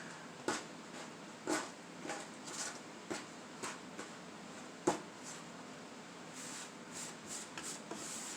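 Hands working kinetic sand: soft scrapes and light taps about every half second, one sharper tap about five seconds in, and a longer hissing scrape near the end.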